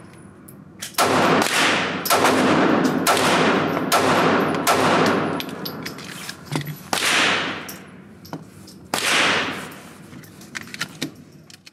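Shots from a Springfield Armory Hellcat micro-compact 9mm pistol at an indoor range: six or seven loud shots spaced a second or more apart, each followed by a long echo off the range walls. Fainter sharp clicks and pops fall in between.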